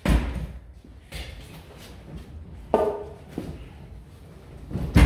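An axe striking into the top of a large oak stump, with heavy wooden knocks and thuds as the stump is worked on the pickup's bed: a hard blow at the start, a knock with a short ring about midway, and the loudest thud near the end.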